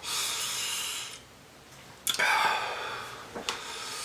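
A person breathing out hard through the mouth in long, breathy breaths, twice, with a weaker one near the end: panting against the burn of very spicy food.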